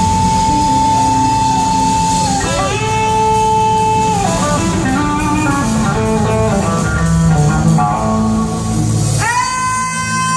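Live blues-rock band playing, led by an electric guitar. The guitar holds a long high note, slides down into another, plays a quicker run of notes, and lands on a new sustained note near the end, over bass.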